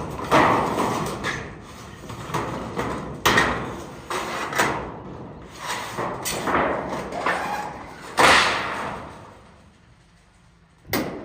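Roof repair materials being handled and dragged into place: a run of irregular rustling, scraping swishes with a few sharp knocks, dying away about ten seconds in.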